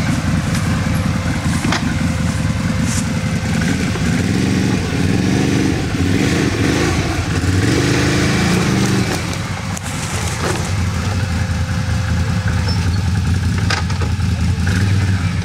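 Can-Am ATV engine running under load as the quad climbs over a dirt rut, revving up and down several times in the middle, with a steady low running note before and after and a few sharp clicks.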